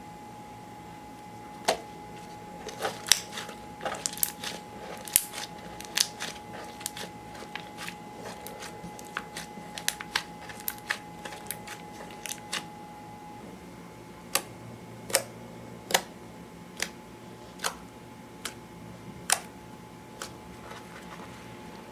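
Clear slime being worked by hand, giving sharp clicks and pops of trapped air: a dense, irregular run in the first half, then single pops about once every second.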